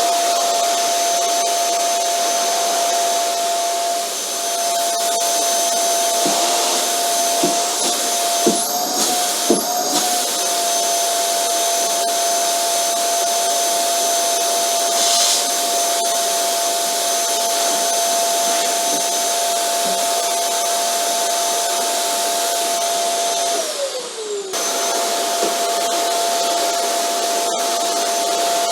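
Vacuum cleaner motor running steadily: a loud rushing of air with a high, even motor whine. There are a few small knocks about eight to ten seconds in. About three-quarters of the way through, the whine briefly drops in pitch and then comes back.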